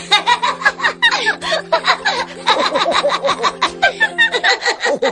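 Cartoon characters laughing in quick repeated bursts over background music with held notes; the music notes drop out shortly before the end while the laughter goes on.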